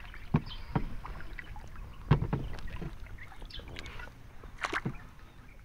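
Wooden paddle working a small wooden outrigger canoe, giving a handful of sharp knocks against the hull over a low wash of water.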